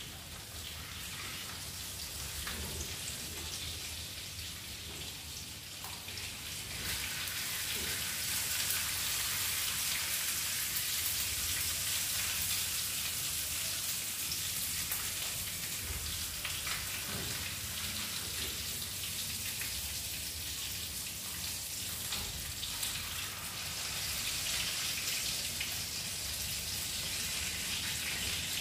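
Salmon fillet sizzling in hot oil in a frying pan, a steady crackling hiss that grows louder about seven seconds in.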